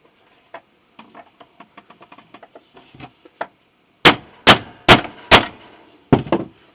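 Light clicking and handling, then sharp metallic clanks with a bright ring: four quick strikes about 0.4 s apart, followed by two more near the end.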